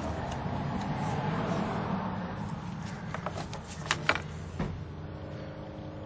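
A few sharp clicks and taps, a little past halfway through, as parts are handled at the exhaust-side VVT oil control valve and its electrical connector. They sit over a steady low background hum.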